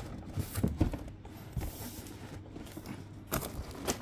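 Cardboard knocking and scraping as a boxed figure is wrestled out of a tight-fitting cardboard shipping box that it sticks in: a few dull knocks in the first second, quieter rubbing, then a louder scrape near the end.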